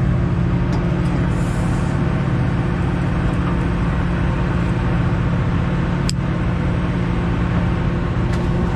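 Party boat's engine running with a steady low drone over constant noise, with a couple of short clicks about six and eight seconds in.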